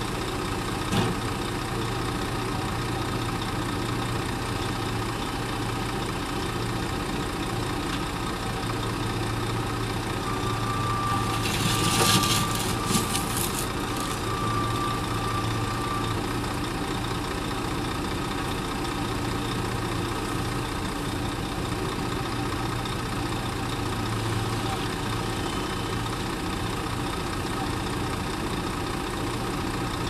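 Heavy machinery engines idling steadily with a low hum. About twelve seconds in there is a short, loud hiss.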